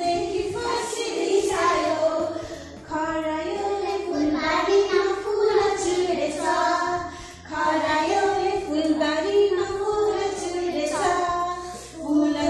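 A group of young children singing a song together, in phrases of a few seconds with short breaks between them.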